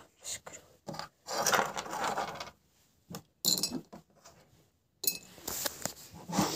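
Small rocks clinking and rattling against each other and the glass jar as they are shifted inside it: scattered sharp clicks, with longer rattling runs about a second in and again near the end.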